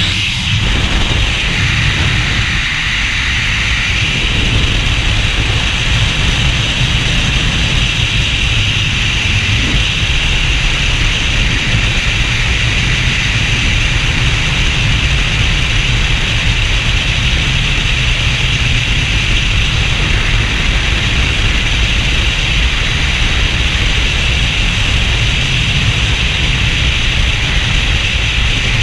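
Freefall wind noise: a loud, steady rush of air battering a skydiver's camera microphone.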